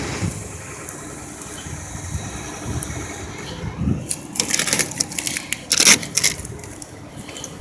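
Wind rumbling on the microphone, with a run of sharp crackling rustles from a little past the middle, loudest just before the end.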